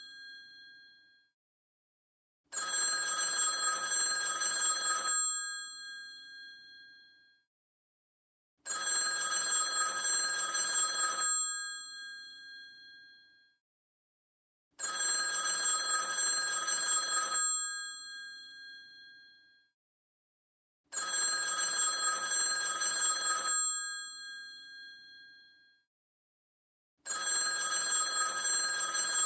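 Vintage telephone's mechanical bells ringing in repeated bursts of about two and a half seconds, one starting every six seconds or so. The bells ring on briefly after each burst stops.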